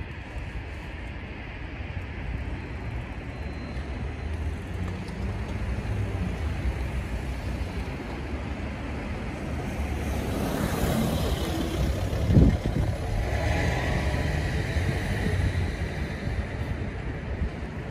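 Road traffic on a city street: cars driving past close by, with tyre and engine noise that swells as vehicles pass and is loudest a little past the middle. A single brief low thump stands out about two-thirds of the way in.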